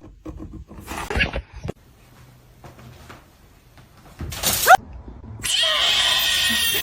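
A domestic cat gives a short rising meow about two-thirds of the way through, after a few soft knocks. Near the end comes a louder, rasping stretch of noise.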